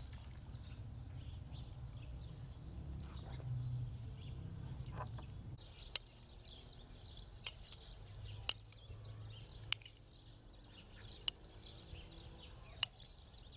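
A metal spoon striking a china plate while chopping boiled eggs: six sharp clinks, one every second and a half or so, starting about halfway through. Birds chirp faintly throughout, and a low outdoor rumble fills the first half.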